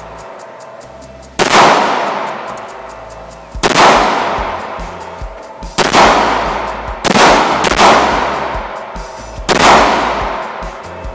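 Five shots from a Springfield XD40 subcompact .40 S&W pistol, fired one at a time about two seconds apart, each crack ringing out in a long echo off the walls of an indoor range.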